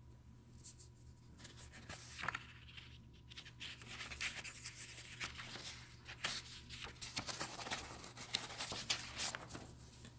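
Faint scratchy rustling and irregular small clicks over a low steady hum.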